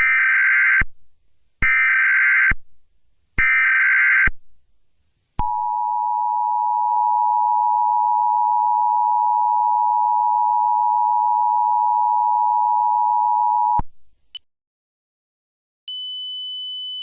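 Emergency Alert System alert tones: three short bursts of SAME header data, then the two-tone attention signal, a steady dual tone held for about eight seconds that cuts off suddenly. Near the end a single high steady tone begins.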